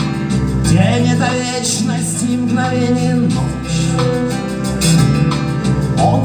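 Live rock song in an instrumental passage between sung lines: electric guitar over bass and a steady beat.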